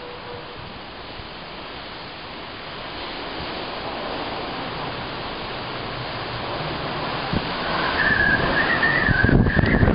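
Typhoon wind and rain, a steady rushing noise that grows louder. From about eight seconds in, a high wavering whistle of wind joins, and gusts buffet the microphone near the end.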